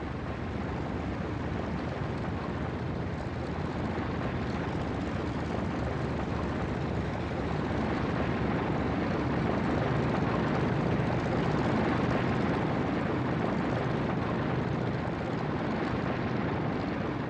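Boeing B-29 Superfortress bombers' four Wright R-3350 radial piston engines running as the bombers roll for takeoff: a steady, dense propeller drone that builds gradually and is loudest about two-thirds of the way through.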